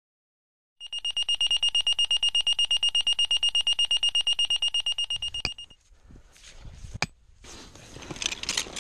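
A high electronic alarm tone beeping rapidly, about nine beeps a second, for about five seconds before stopping. After it come rustling and metallic clinks of rope-rescue hardware (carabiners and pulleys) being handled.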